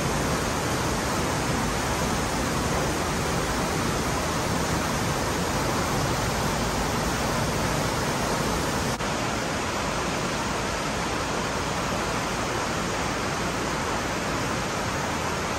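Fast mountain creek rushing over rocks in a canyon: a steady, even rush of whitewater.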